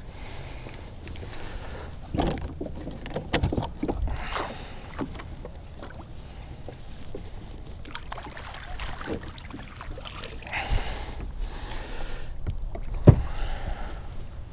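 Knocks and thumps on the hull of a small plastic pond boat, with water sloshing, as a hooked bass is fought beside the boat and the landing net is handled. The sharpest, loudest thump comes near the end.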